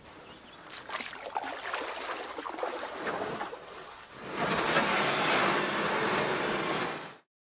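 Water splashing and lapping around a paddled canoe on a lake, with small scattered drips and knocks, then a louder steady rush of noise from about four seconds in that cuts off suddenly just before the end.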